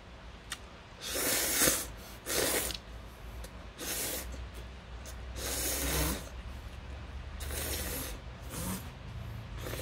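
A person slurping buckwheat noodles (memil guksu) off chopsticks: a string of about six loud, airy slurps, the first and loudest about a second in.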